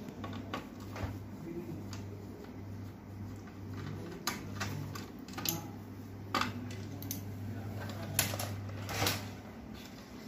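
Scattered clicks and light clatter from a screwdriver and the plastic and metal parts of a laser printer being taken apart, over a steady low hum.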